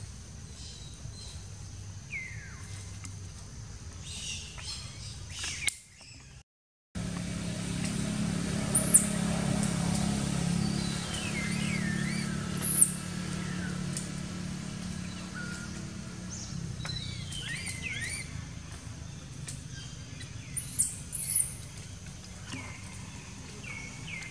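Short, high-pitched chirping calls and falling squeals among the trees, over a low steady hum. The sound cuts out briefly about six seconds in, and the loudest calls come about nine, thirteen and twenty-one seconds in.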